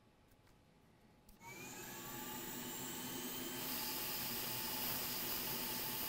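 A hot air rework station switching on about a second in: its fan spins up with a brief rising whine, then blows a steady hiss that gets somewhat louder partway through. It is heating a phone-tablet motherboard to solder on a replacement capacitor.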